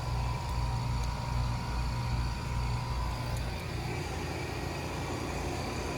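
Outdoor air-conditioner condensing unit running steadily and quietly, a low compressor hum under the top-discharge condenser fan blowing warm air.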